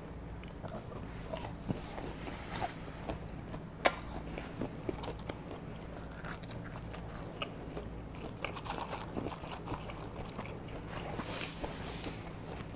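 A person chewing and biting McDonald's chicken nuggets and french fries, with many small mouth clicks and a sharper click about four seconds in, over a low steady hum.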